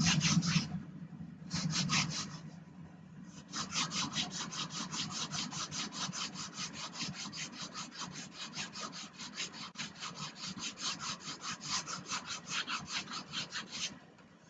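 Sandpaper rubbing back and forth on a model airplane wing with light pressure, about four quick strokes a second. A couple of short bursts come first, then a long even run that stops suddenly near the end.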